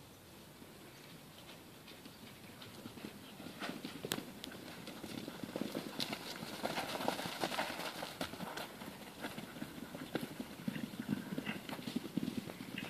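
Two horses galloping across a grass paddock, their hoofbeats on the turf faint at first, growing loud about three seconds in as they come close and pass, then carrying on.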